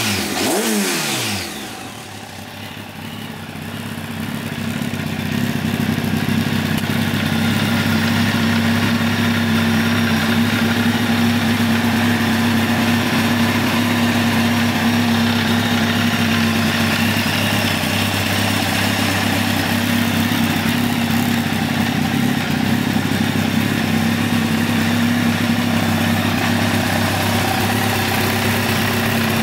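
2005 Kawasaki ZX-10R's inline-four engine running through an aftermarket Arrow silencer. The revs fall away in the first second or so, then it settles into a steady idle.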